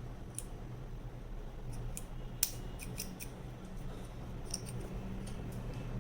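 Tailoring scissors snipping: a string of short, sharp, irregularly spaced snips and clicks over a low steady hum.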